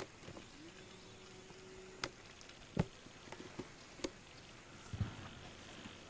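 A handful of scattered sharp pops and knocks, about five in six seconds, the strongest about three seconds in, over a faint steady background. A faint steady tone sounds for about a second and a half near the start.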